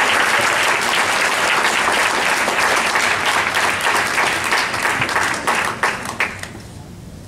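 Audience applauding, a dense clapping that thins to a few scattered claps and dies away near the end.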